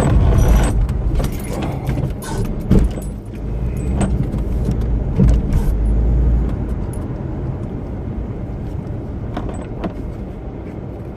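Car engine and road noise as the car is driven and turned around, with small rattles and clicks. The low engine rumble is loud at first and drops off about six and a half seconds in.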